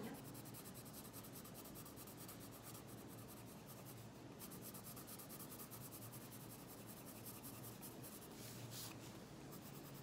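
Faint, steady scratching of a colored pencil shading on paper in rapid back-and-forth strokes.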